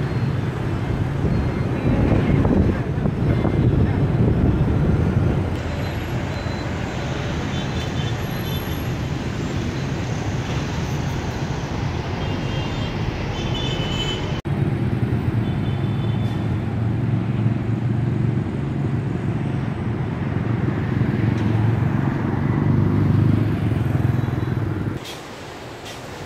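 Busy city street traffic: a steady mix of motorbike and car engines passing. It drops much quieter near the end.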